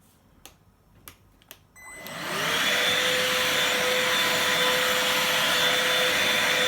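A few soft clicks, then the Bosch GAS 18V-1 18-volt cordless handheld vacuum cleaner is switched on about two seconds in. Its motor spins up with a rising whine and then runs steadily with a constant hum and airflow noise.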